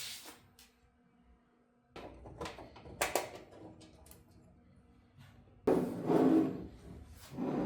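Hands handling server chassis hardware: a few short clicks and knocks, then a louder sliding, scraping stretch beginning a little before six seconds in and a further one near the end.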